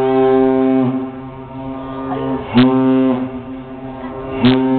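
A deep horn sounding a signal: one long blast that ends about a second in, then two short blasts about two seconds apart.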